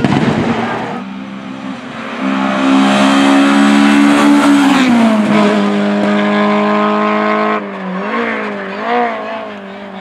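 Honda Civic hatchback's engine at high revs as it races away up a hill road. A strong held note slides down about five seconds in, then wavers up and down and fades near the end as the car moves off.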